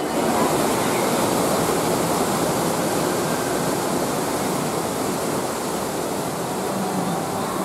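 Steady rush of a waterfall, water falling and splashing without a break.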